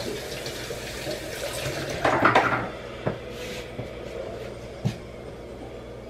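Kitchen clatter at the counter and sink: dishes and cups knocking, with water running at the sink under it. The clatter is loudest about two seconds in, and there are single sharp knocks about three and five seconds in.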